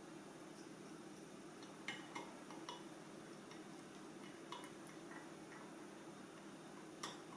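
Faint, scattered clicks and taps of small tools and metal parts being handled, about seven in all, over a low steady hum.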